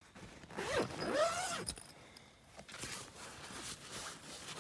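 A zip being pulled, its buzz arching up and down in pitch with the speed of the pull, followed by a few seconds of softer rustling and scraping of handled gear.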